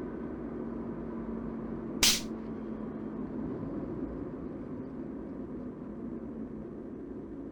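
Steady low background rumble with a faint steady hum, broken once about two seconds in by a short, sharp hiss.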